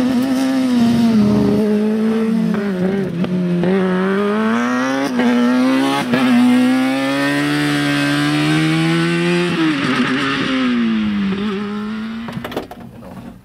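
Single-seat race car's engine revving as it drives a cone course, its pitch rising and falling repeatedly with a few abrupt jumps in pitch, then fading away near the end.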